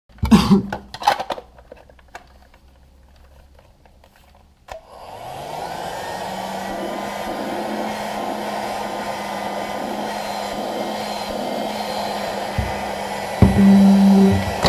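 A handheld 12-volt car vacuum cleaner is handled with a few clicks, then switched on about a third of the way in. Its small motor spins up and runs steadily with a rush of air, and there are a few loud knocks near the end.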